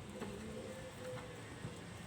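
Pigeons cooing, a run of low soft notes repeating, with faint ticking in the background.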